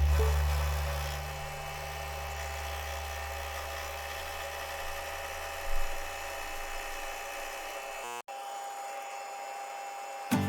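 Electric motor of a milling machine humming steadily. Its low hum is loudest at first and eases down within the first second or two. It stops abruptly about eight seconds in.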